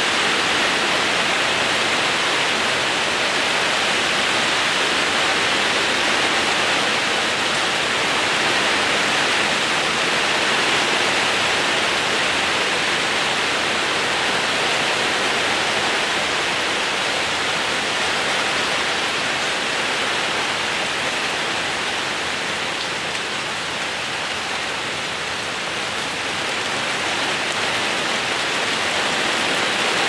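Fine rain pattering on a roof and on garden leaves: a steady, even hiss of water droplets, a little softer for a few seconds about three-quarters of the way through.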